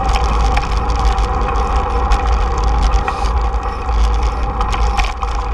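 Wind buffeting the microphone of a camera mounted on a moving bicycle, with the steady rolling noise of the bike on a paved path and scattered small clicks and rattles.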